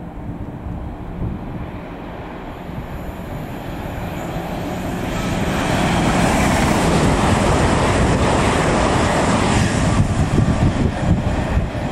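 Avanti West Coast Hitachi Class 805 train running through the station at speed: the rush of wheels and air builds and is loudest about halfway through, as it passes, then stays loud.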